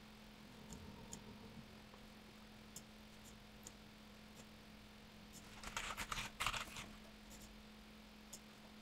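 Faint computer mouse clicks and keyboard key taps: scattered single clicks, then a quick run of taps and clicks about six seconds in, over a steady low electrical hum.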